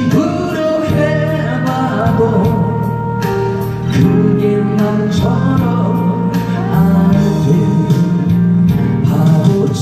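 A man singing a slow Korean 7080-era ballad into a handheld microphone over backing music with a steady beat.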